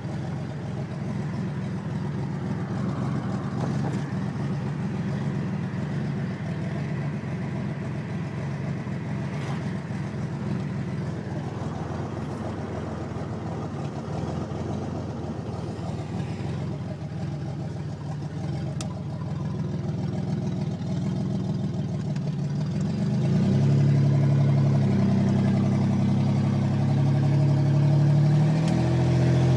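1987 Buick Grand National's turbocharged 3.8 V6 running with a pre-turbo exhaust leak: the driver-side crossover pipe has nearly blown off, so it sounds like a non-turbo 3.8 running on five cylinders. It idles steadily, then about two-thirds of the way in the revs come up and are held higher for several seconds before dropping back.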